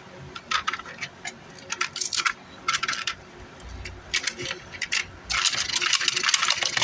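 Loose MOSFET transistors clicking and rattling against each other as they are handled and picked out. There are scattered clicks and short clatters, then a denser rattle over the last second and a half.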